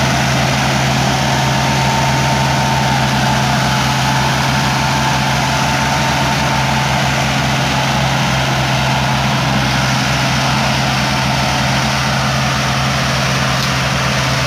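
Massey Ferguson 385 tractor's four-cylinder diesel engine running steadily under heavy load as it pulls a loaded trolley, its front wheels lifting off the ground.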